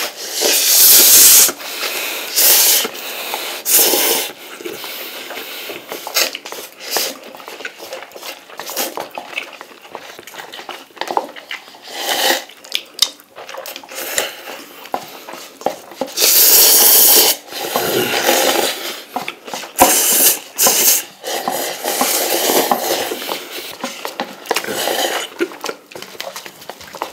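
Two people rapidly slurping and chewing spicy instant noodles eaten with chopsticks, loud slurps coming in irregular bursts, the longest about a second in and again around sixteen seconds in.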